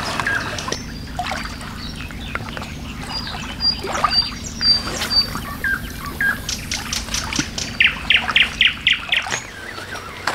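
Songbirds calling: scattered short, high whistled notes, then a quick run of about five clear repeated notes near the end.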